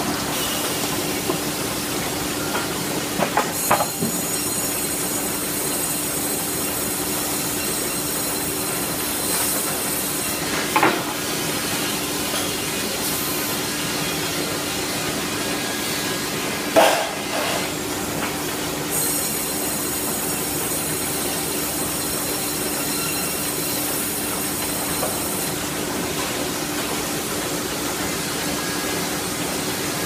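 Sawmill machinery and a powered roller conveyor running steadily with a constant hum. A high thin whine comes and goes twice, and a few sharp knocks break in, the loudest about two-thirds of the way through.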